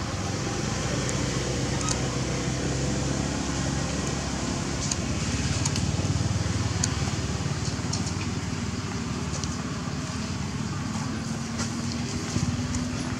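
Steady low rumble like a running motor, with a faint steady hum and scattered faint clicks.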